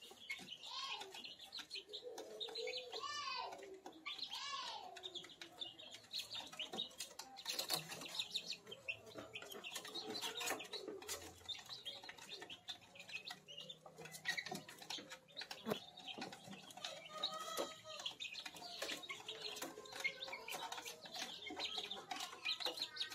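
Four-week-old kampung chicken chicks peeping and chirping, with some longer rising-and-falling calls about three and four and a half seconds in, over many short sharp taps.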